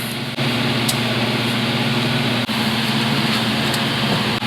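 The BMW 428i's 2.0-litre turbocharged four-cylinder engine idling steadily, with a loud even hiss over it.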